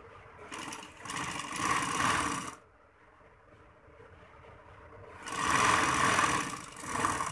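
Domestic sewing machine stitching through net and fabric in two runs of about two seconds each. The first starts about half a second in and stops sharply, and the second starts about five seconds in.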